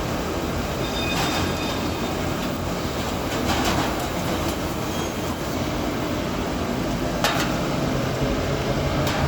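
Industrial recycling machinery running steadily, with a continuous low rumble and rattle and a few brief knocks.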